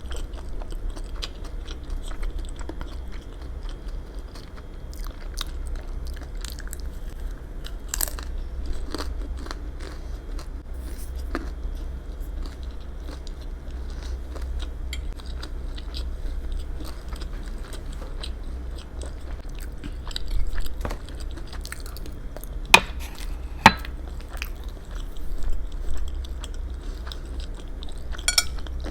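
Close-miked eating: chewing and biting with small wet mouth clicks, over a steady low hum. Two sharp clicks about a second apart come just past the middle, and there is a brief crackly stretch near the end.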